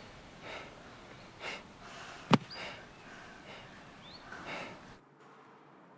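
Two people breathing hard, out of breath after playing tennis, with heavy breaths about once a second. A single sharp click a little over two seconds in is the loudest sound. A short rising chirp comes near the end, and about a second before the end everything drops to a faint steady hum.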